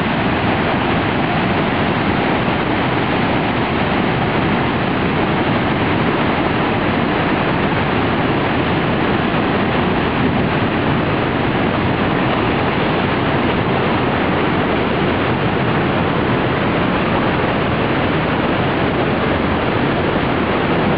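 Swollen river floodwater rushing: a loud, steady, unbroken rush of water.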